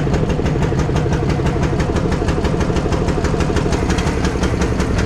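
An engine idling steadily with an even, rapid pulsing rhythm.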